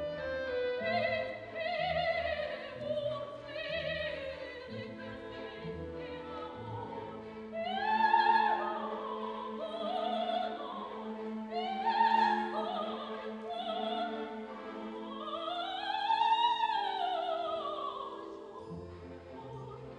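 Operatic soprano singing with a symphony orchestra of strings and winds. Her voice has a wide vibrato over held orchestral chords, and near the end a phrase sweeps up to a high note and falls back down.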